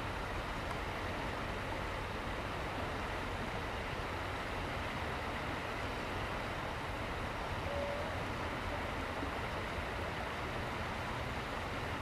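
Steady rush of river water flowing over rocks, with a low rumble underneath.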